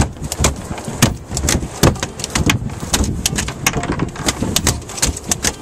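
A ray flopping on a boat deck, its wings slapping the deck in a rapid, irregular run of sharp smacks.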